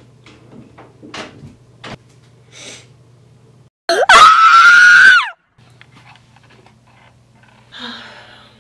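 A boy's loud, high scream, held for about a second and a half and cut off abruptly, about four seconds in. Before it, faint clicks and rustles of the camera being handled over a low steady hum.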